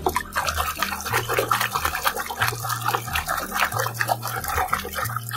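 A hand splashing and churning water rapidly in a plastic tub, a continuous run of sloshing splashes.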